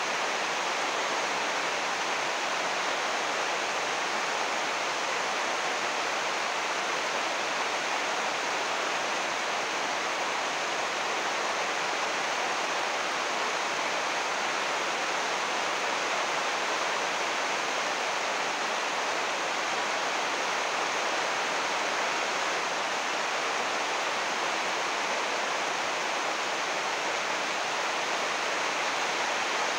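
Heavy rain falling on an 80-micron UV plastic greenhouse roof, heard from inside beneath it: a steady, even hiss of drops.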